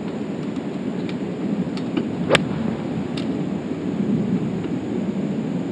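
A golf club strikes the ball on a fairway approach shot about two seconds in: a single sharp crack, over a steady low outdoor rumble.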